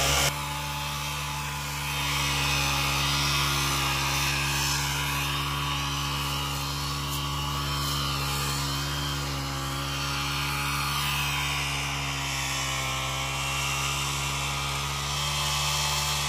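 Brush cutter engine running steadily under load, driving a weeder attachment through the weeds and soil between crop rows; its pitch drifts slightly up and down.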